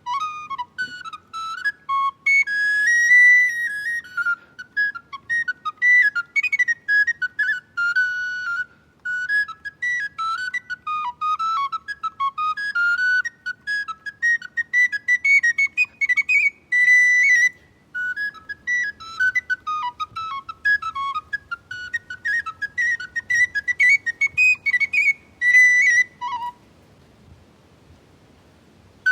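Solo recorder playing a fast, high, ornamented tune of short stepped notes, with a brief pause about two-thirds of the way through. The playing stops a few seconds before the end.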